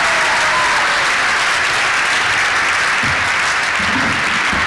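Audience applauding steadily, with some low voices or notes near the end.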